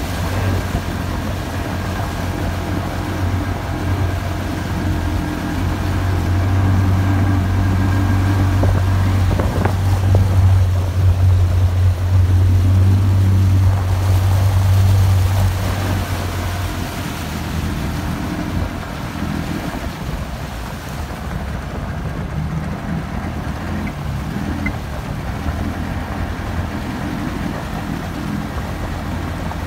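A small boat's motor runs steadily as a low drone. It grows louder about six seconds in and eases back after about sixteen seconds, then carries on at a lower pitch.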